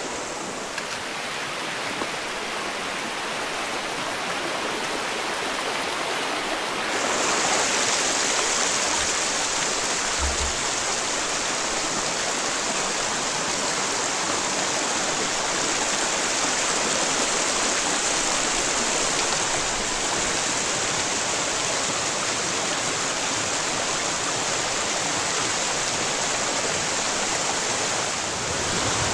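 Rushing water of a fast mountain creek and waterfall: a steady, even rush that becomes louder and brighter about seven seconds in.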